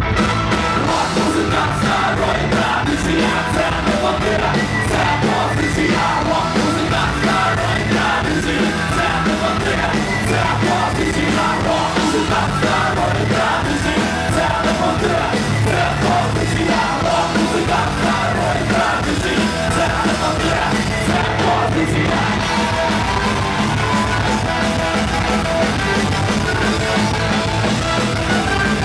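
Live rock band playing loud: a drum kit and electric guitar, with a singer's voice over them.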